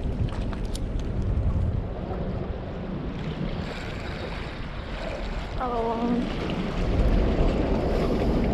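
Wind buffeting the microphone over water moving against the rocks, louder in the second half. A short wavering pitched call is heard about six seconds in.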